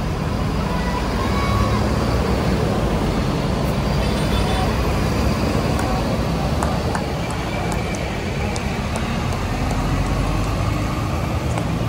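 Steady road traffic, with the low, even rumble of heavy vehicle engines such as passing tour buses.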